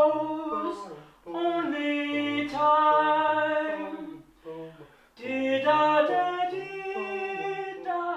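A cappella singing in several-part harmony with no instruments, in phrases that break off about a second in and again around four and a half seconds.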